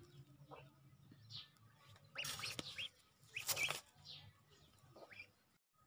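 Young ducks peeping: several short, thin peeps, with two louder, noisier stretches of calling about two and three and a half seconds in.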